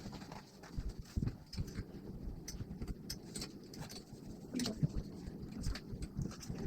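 Irregular light clicks, taps and soft knocks of parts and tools being handled during 3D printer assembly, with a few louder knocks about a second in and near the end.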